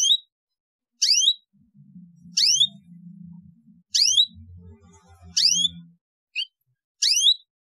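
Canary chirping: the same short, high, rising chirp repeated about every second and a half, seven times. This is the kind of canary call that is played to young canaries to get them to learn to sing.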